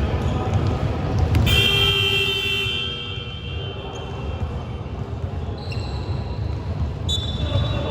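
Basketball scoreboard buzzer sounding for about a second and a half, with another buzzer tone starting near the end, over gym noise.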